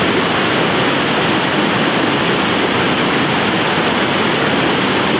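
Steady, loud rush of river rapids: white water churning over rocks.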